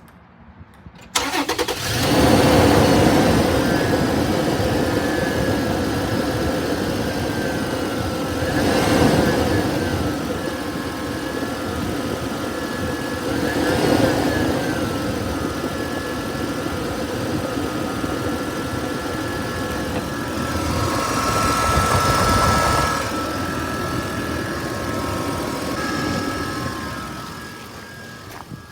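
2011 Toyota Tacoma engine cranked and started about a second in, then running with a steady whirring whine from the front of the engine by the belts. The engine speed swells briefly three times and it falls quieter near the end. The owner is unsure whether the whir is normal or a fault.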